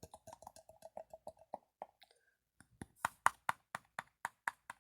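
Crunchy slime crackling as it is handled, with quick small pops for about two seconds. After a short pause come evenly spaced sharp clicks, about four a second.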